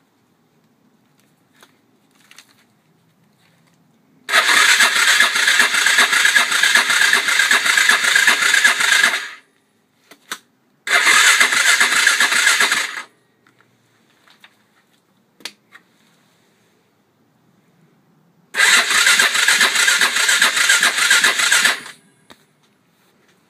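Dirt bike's electric starter cranking a cold engine in three tries, about five, two and three seconds long. The engine never fires: it is not getting fuel after sitting for two weeks.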